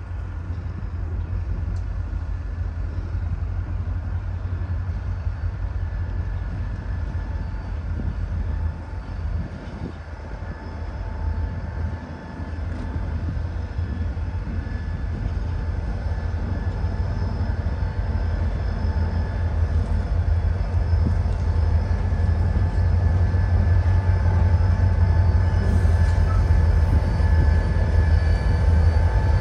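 Diesel-electric freight locomotives running as they pull a train out, a low engine rumble with a steady whine over it, growing louder toward the end as they draw near.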